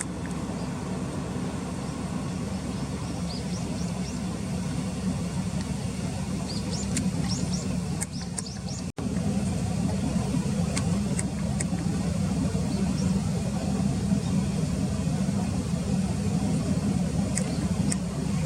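Steady low rumble of distant road traffic, with faint short high bird chirps and clicks now and then over it.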